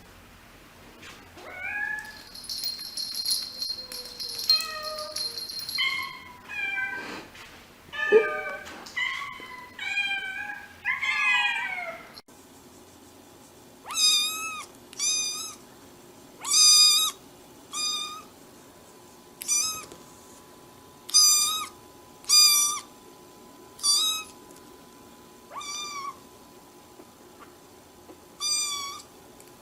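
Cats meowing. A run of varied meows gives way, after a short break about twelve seconds in, to one cat meowing over and over, about once a second, each meow much alike.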